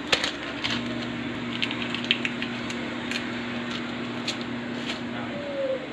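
Scattered light clicks and crinkles from a seasoning sachet being handled and opened by hand, over a low steady electric hum that starts just under a second in and cuts off near the end.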